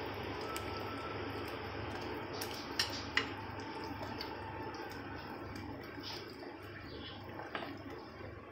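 A metal spoon stirring thick semolina batter in a glass bowl: a steady wet scraping, with two sharp clicks of the spoon against the glass about three seconds in and a few fainter taps later.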